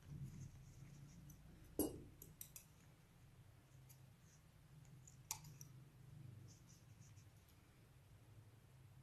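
Scissors clicking and snipping at a strip of cardstock, a few sharp clicks. The loudest comes just under two seconds in, smaller ones follow, and another comes a little past five seconds, over a low steady hum.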